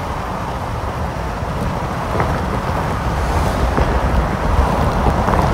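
Steady road and wind noise from a moving car: a low rumble with a hiss above it, growing slightly louder.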